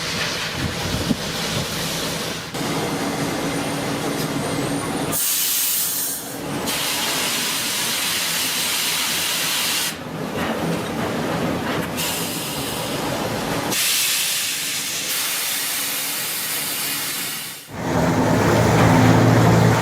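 Sawmill machinery at a ring debarker running, a loud steady industrial noise with strong hissing. The sound changes abruptly several times, and two stretches are mostly high hiss.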